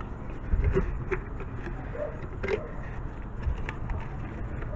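Soft, scattered scrapes and rubs of gloved hands working a rubber tie rod boot outwards along a steering tie rod, with a low bump about half a second in.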